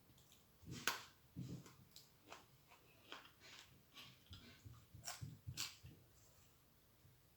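Faint eating sounds: a scattered run of small clicks and soft wet smacks of chewing, the loudest about a second in.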